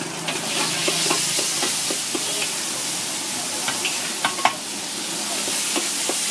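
Red chili paste sizzling as it hits hot oil in a wok, the frying hiss rising just after it goes in. A metal spatula scrapes and knocks against the wok as it is stirred, in a few sharp clicks, the loudest about four seconds in.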